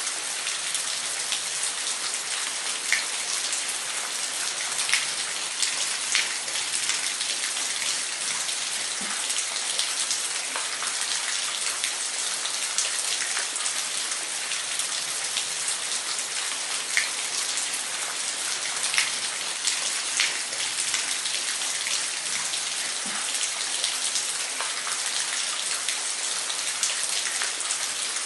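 Waterfall: falling water making a steady, even hiss, with scattered small splashes and drips.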